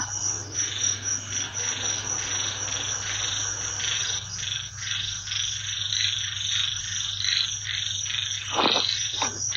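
Night chorus of frogs croaking in rapid repeated pulses, with a steady high insect trill above them and a low steady hum underneath.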